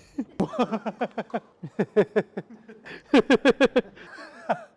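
A person laughing in several bouts of short, rapid pulses, the pitch dropping through each bout.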